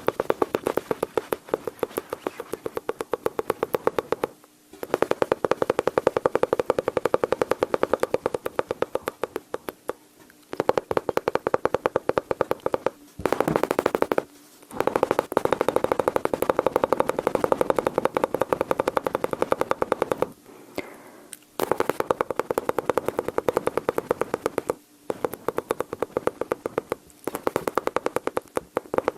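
Close-miked mouth sounds imitating machine-gun fire: rapid clicks and pops from the mouth, many a second, in runs of a few seconds separated by short pauses.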